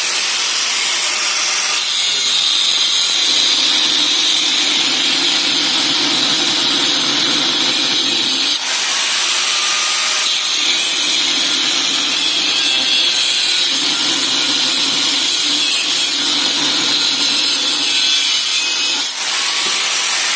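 Angle grinder cutting through the steel shell of a fridge compressor: a steady grinding hiss, with two brief dips in the cut.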